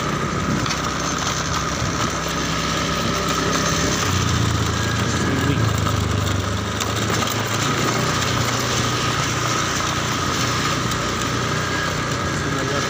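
Small motorcycle engine running as the bike rides slowly along, its note dropping lower about four seconds in and then holding steady.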